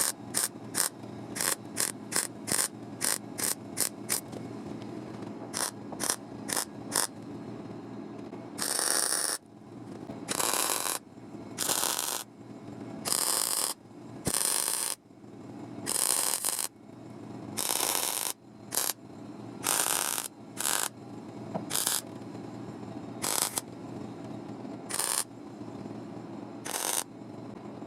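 Welder laying a series of tack welds, then longer stitch welds, on a patch in a car's steel floor panel: a run of quick short zaps, then longer crackling bursts about once every second and a half, over a steady low hum.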